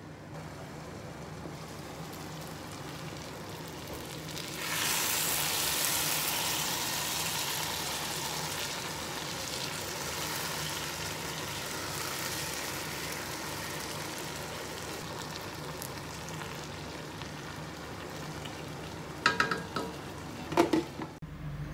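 Eggplant and potato slices sizzling in oil in a pan. The hiss turns louder and brighter about five seconds in, when the glass lid comes off, and a wooden spatula stirs through. Near the end the glass lid clinks a few times against the pan's rim as it goes back on.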